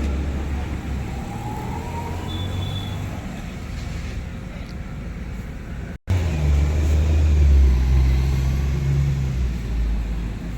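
Steady low motor-vehicle rumble. About six seconds in it drops out for a moment, then returns louder with a low droning hum.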